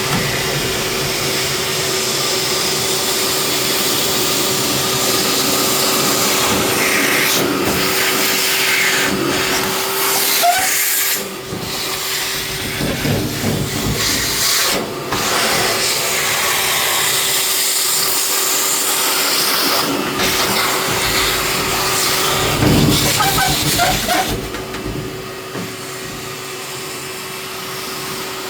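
Vacuum cleaner running steadily with a constant whine, sucking dust during a furnace clean-out. Its sound shifts and briefly dips a few times as the nozzle moves, and it is quieter near the end.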